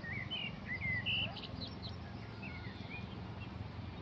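A songbird singing a quick series of short chirps and whistled notes, most of them in the first two seconds, with a few more near the end, over a steady low background noise.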